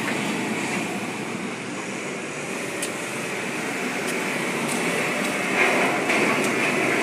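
Forklift engines running as the forklifts drive while carrying a long steel ship side panel, a steady drone that swells a little near the end. A few sharp clicks and rattles from the steel load come over it.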